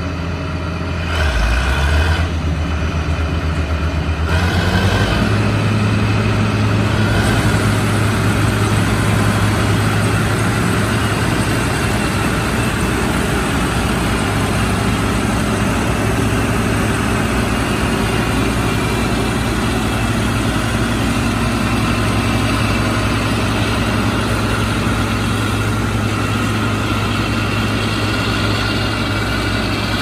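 John Deere 9760 STS combine running: the diesel engine's hum climbs in pitch about four seconds in, then runs steadily at the higher speed.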